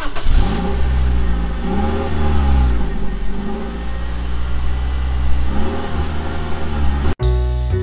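Motor vehicle engine and road noise while driving, the engine note rising and falling several times. It cuts off suddenly near the end and piano music begins.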